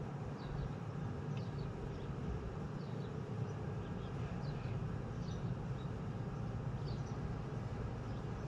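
Steady low background rumble with birds chirping: short, high chirps that fall in pitch, coming every second or so.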